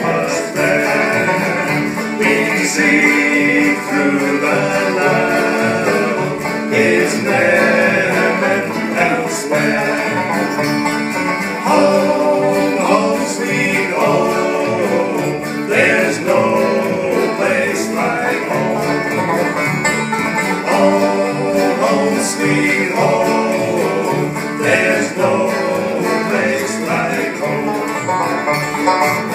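Live bluegrass band playing an instrumental passage: fiddle, five-string banjo and acoustic guitars together over a steady beat.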